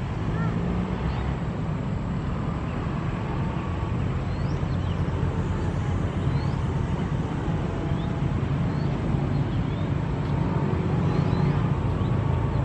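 Radio-controlled North Star model seaplane flying at a distance, its propeller drone faint and wavering in pitch under a steady low rumble, with small birds chirping now and then.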